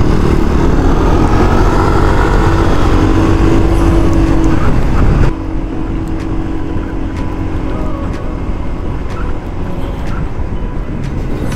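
Motorcycle engine running while riding: a steady pitched drone over a low rush of noise. The whole sound drops suddenly in level about five seconds in.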